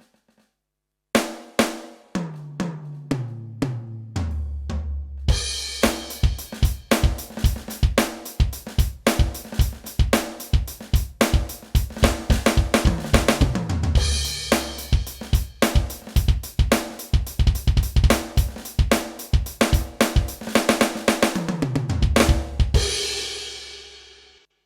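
Yamaha DTX720K electronic drum kit with its DTX700-series module being played. It opens with a tom fill stepping down in pitch, then a steady groove of kick, snare, hi-hat and cymbals. More tom fills come midway and near the end, and it closes on a cymbal crash that fades out.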